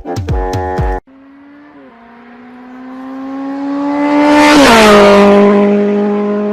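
A motor vehicle passing by. Its engine tone grows steadily louder as it approaches, drops in pitch as it passes about four and a half seconds in, then fades.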